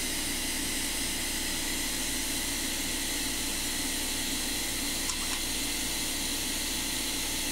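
Steady airy hiss with a low hum from equipment running, even and unbroken, with a faint tick about five seconds in.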